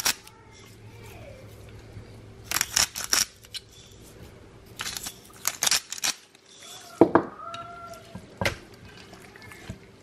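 Handling noise as a raw whole chicken is handled: scattered clusters of short clicks and taps over a low steady hum. A brief high voice sounds in the background about seven seconds in.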